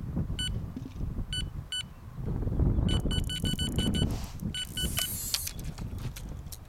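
Electronic carp bite alarm on a rod pod beeping as line moves over it: a few single beeps, then a fast run of beeps about halfway in and a short burst after. Wind noise on the microphone underneath.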